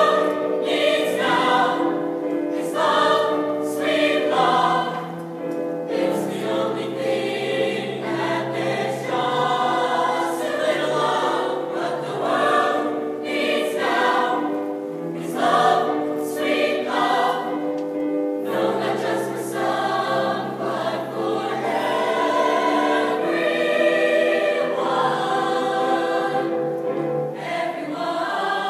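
Mixed choir of women's and men's voices singing a slow passage in several parts, holding long chords that change every second or two.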